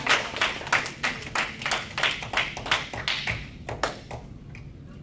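A small audience clapping by hand. The applause dies away about three and a half seconds in, with a few last scattered claps near the end.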